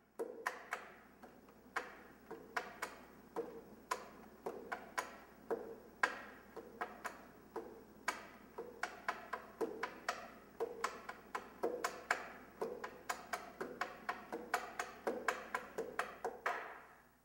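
Tapping on a wall in an irregular run of sharp knocks, about three or four a second, each with a short ring; it stops abruptly near the end.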